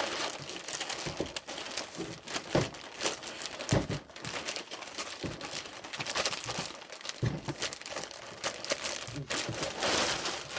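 Packaging crinkling and rustling as a large speaker is pulled out of its box, with a few dull thumps.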